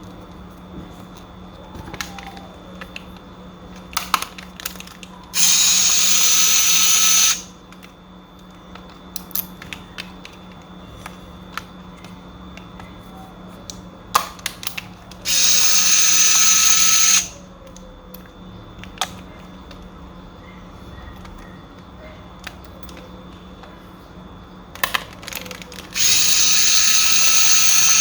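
Small electric screwdriver running in three bursts of about two seconds each, a high whine over a buzz, as it drives screws out of Marshall Major 4 headphones. Light clicks and taps of small parts being handled fall between the bursts.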